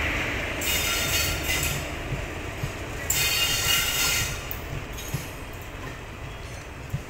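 Passenger coaches of the departing Jan Shatabdi Express rolling slowly past, with a steady low rumble and a few wheel clunks over rail joints. Two bouts of high-pitched wheel squeal rise over it, one starting under a second in and one from about three to four seconds in.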